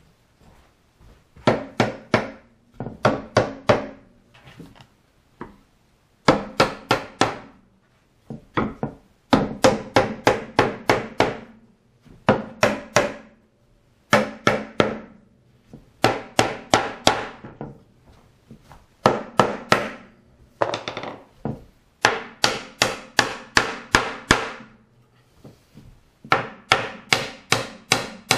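Hammer blows driving the legs and stretchers of a hardwood Windsor chair home into their sockets. The blows come in quick bursts of several strikes, with short pauses between the bursts.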